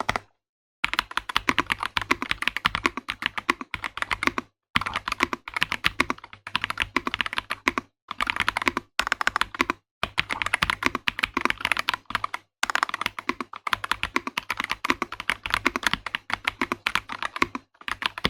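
Typing test on an Ajazz AK650 65% mechanical keyboard with Flying Fish switches: rapid runs of keystroke clacks with a creamy sound, broken by short pauses every few seconds.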